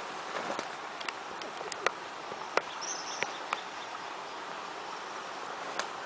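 Steady outdoor background hiss with scattered light clicks through it and a brief high chirp about three seconds in.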